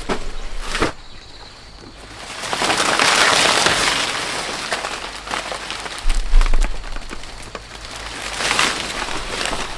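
Rustling of leaves and stalks being handled, with scattered sharp snaps and cracks and two longer stretches of rustling, the first about three seconds in.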